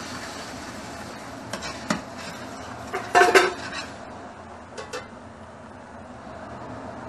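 Metal cookware clattering: a ladle knocking in a wok of scrambled egg, then about three seconds in a louder metallic clatter with a short ring as the stainless steel bowl is taken off the pan and set down, and two light knocks near five seconds.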